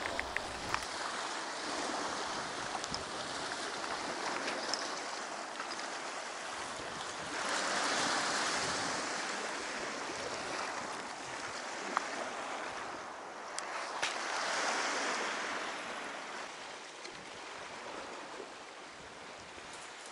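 Sea surf washing against a rocky shore, swelling up twice, with a few sharp clicks.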